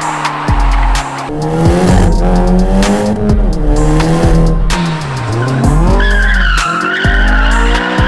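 A drifting car's engine revving up and down, its pitch dipping low around the middle, with tyres squealing high and steady from about six seconds in. A music track with a deep bass beat plays underneath.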